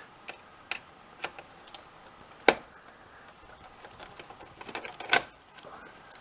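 Irregular sharp clicks and taps of hard plastic and metal parts being handled inside an opened PS4 console, the loudest about two and a half seconds in and a quick cluster about five seconds in.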